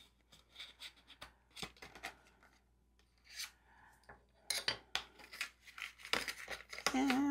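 Metal planner discs being worked out of a tight paperboard box. Paper rubs and scrapes, and the discs give light clicks as they are set down on the table, more often in the second half.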